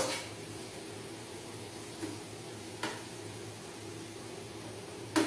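Onion sautéing in oil in a frying pan: a steady low sizzle and hiss, broken by a few sharp clinks of a utensil against the pan, the loudest near the end.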